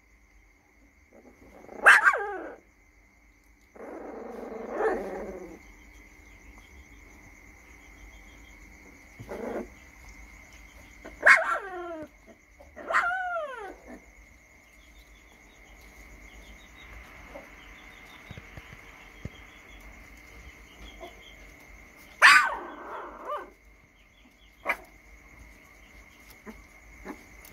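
A 20-day-old Rottweiler puppy giving about half a dozen scattered, high-pitched little barks, several sliding down in pitch, with a longer, lower rough sound about four seconds in.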